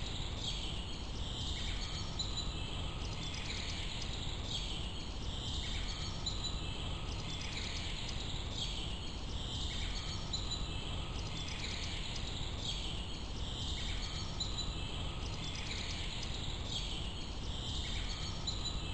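Outdoor ambience: a steady low rumble of background noise with high chirping that repeats evenly about every two seconds.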